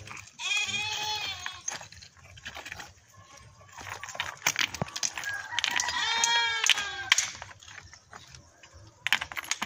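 A goat bleats twice, each a long, high, wavering call, the first about half a second in and the second at about six seconds. Between and after the calls come sharp taps of a hammer trimming stone cladding pieces, with a quick run of knocks near the end.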